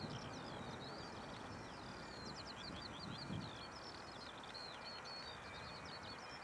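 Small birds singing continuously, a rapid run of high chirps and trills, over a steady low rumble from the Boeing 737-33A's jet engines as it rolls out on the runway after touchdown.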